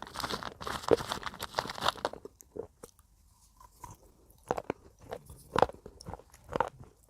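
Broken slate pencil being bitten and chewed close up: a dense run of crunching for about two seconds, a short lull, then single sharp crunches about once a second.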